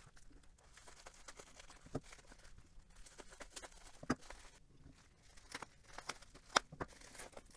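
Bubble wrap being handled and cut open with a knife: faint plastic crinkling with a few sharper crackles.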